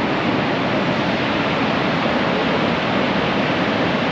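Niagara Falls: the steady, loud rush of a huge volume of falling water, an even noise without breaks.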